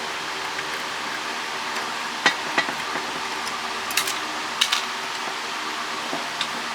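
A handful of sharp metallic clicks and taps from tools and metal parts being handled while a satellite LNB's aluminium housing is taken apart, the loudest about two seconds in, over a steady fan-like hum.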